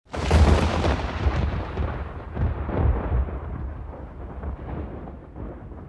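A deep rolling rumble that starts suddenly and fades away over several seconds, swelling again about two and a half seconds in.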